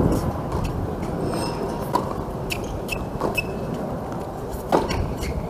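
A tennis rally on a hard court: several sharp pops of racket strings hitting the ball and the ball bouncing, spaced irregularly, the loudest near the end, over steady background noise. Twice a brief high squeak follows a hit.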